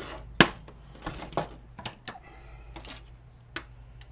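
Scattered clicks and knocks of a 3.5-inch floppy drive's thin sheet-metal ("tin") parts being taken apart by hand. The sharpest knock comes about half a second in, followed by lighter irregular clicks.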